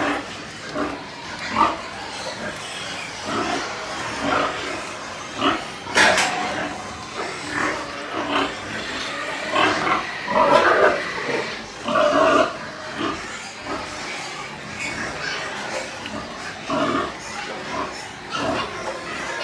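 Domestic pigs in their pens calling in many short, irregular bursts, with a single sharp knock about six seconds in.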